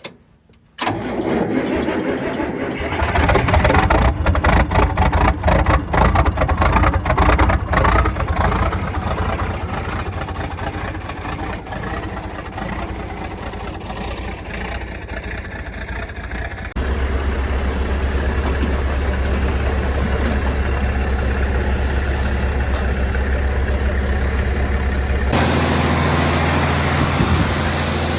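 A farm vehicle's engine starts about a second in and runs, uneven and rattly for the first several seconds before settling into a steady run. Its note shifts abruptly about 17 seconds in, and a steady rushing hiss joins about 25 seconds in.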